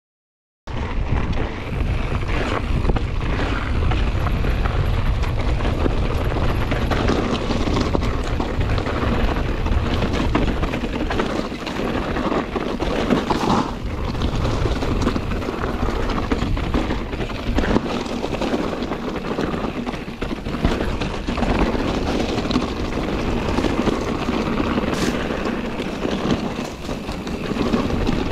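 Scott Ransom 900 mountain bike riding down a dirt singletrack: steady rumble of wind on the microphone and tyres on the trail, with frequent knocks and rattles from the bike. It starts suddenly just under a second in.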